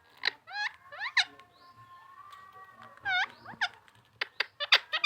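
Pet parrot giving short, sharp chirps and squawks in quick runs, each swooping up or down in pitch, with a few short clicks near the end.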